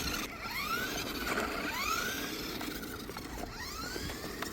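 Toy remote-control car's small electric motor whining in short bursts, its pitch rising and falling with each burst as the throttle is pulsed.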